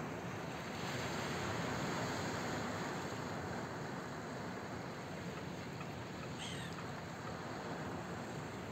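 Surf from a rough sea breaking on a rocky, pebbly shore: a steady rush that swells about a second in. A single short gull call about six and a half seconds in.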